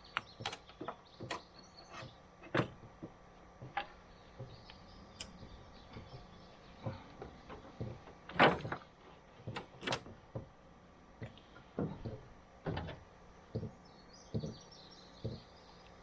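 Irregular sharp clicks and knocks, about one a second, the loudest a little past halfway, over a faint steady hum.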